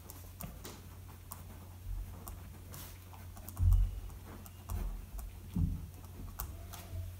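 Pen writing on paper: small scratches and ticks of the tip as letters are formed, with a few soft low thumps of the pen and hand against the pad, the loudest about halfway through.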